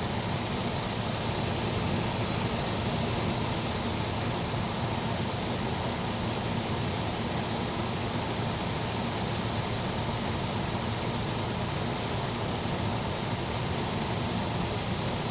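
GE Sahara 14-pint dehumidifier running steadily: its fan blowing an even rush of air over the low hum of its Aspera compressor (a Tecumseh AE type). The compressor is charged and pumping, with the coil turning icy cold.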